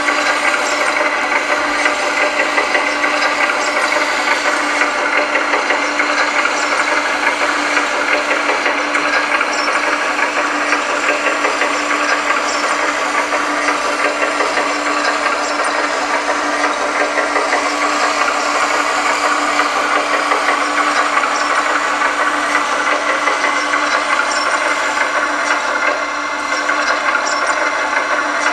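Servonaut sound module on a 1/14 Kabolite K350 RC hydraulic excavator playing a diesel engine idle through the model's small speaker: a steady, thin hum with a fast, even rattle over it and no deep bass.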